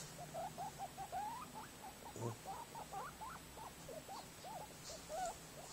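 A guinea pig giving a run of faint, short squeaks that glide up and down in pitch, a few a second.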